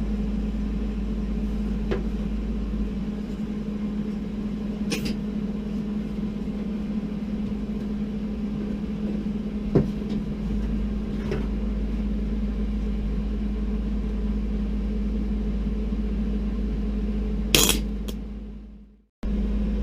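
A steady electrical hum with a few light clicks and taps, and a louder clatter about seventeen and a half seconds in. The sound then fades away and cuts back in sharply near the end.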